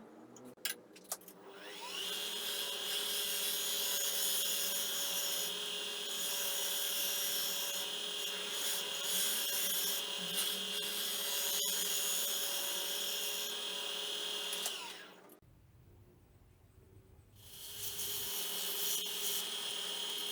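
Wood lathe motor spinning up and running steadily with a hum and a bright hiss. It winds down about fifteen seconds in and starts up again near the end.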